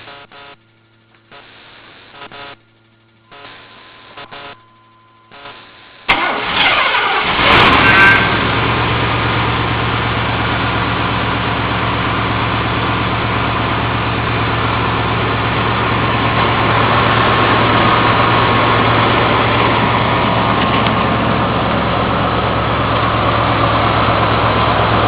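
Chevy Vortec 350 V8 in a 1997 Chevrolet Tahoe cold-starting: about six seconds in it cranks briefly and catches, flares up in revs for a second or two, then settles into a steady idle.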